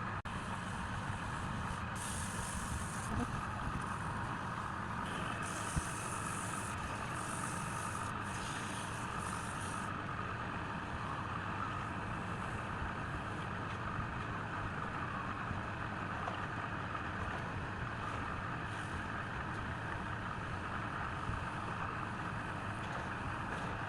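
A machine running steadily with a droning hum, with bursts of high hiss during the first ten seconds or so.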